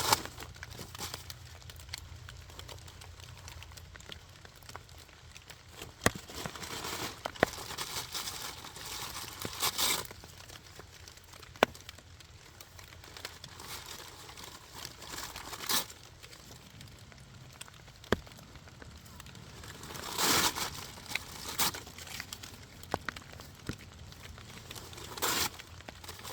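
Wood fire crackling, with sharp single pops every few seconds and a few louder swells of rustling crackle.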